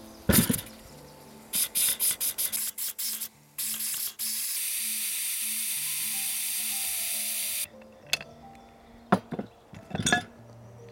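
Cast-metal pressure cooker with a screw-clamp lid set down on a wooden table with a knock, then steam vented from its valve: a few sputtering spurts, then a steady hiss for about three seconds that cuts off, releasing the pressure before opening. Near the end, several metal clanks as the clamp and lid are undone and the lid is lifted.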